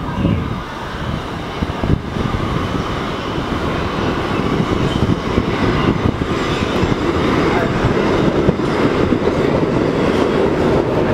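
Kawasaki R188 subway train approaching on elevated steel track and pulling into the station, its wheel and running noise growing steadily louder as it nears.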